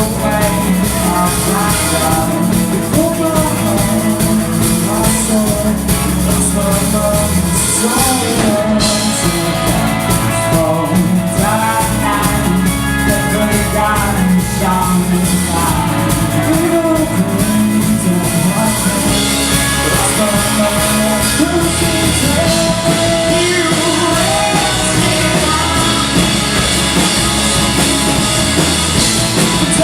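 Live rock band playing a song, with drum kit, guitar and a singer's voice.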